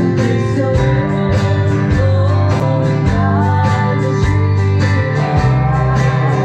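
Live country-rock band playing: electric guitars and a drum kit keeping a steady beat, with a woman singing into a microphone.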